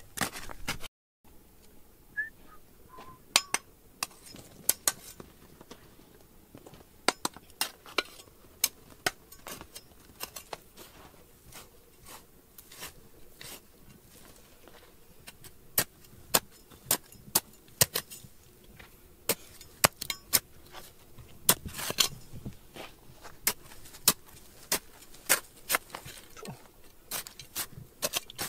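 Irregular sharp clinks and knocks of hard objects striking one another, at times several a second.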